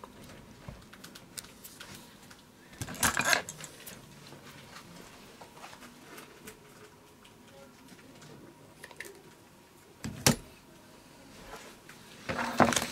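Handling noises of a roll of foam double-sided tape and scissors on a workbench: a short rasp about three seconds in, a sharp click about ten seconds in, and more handling noise near the end.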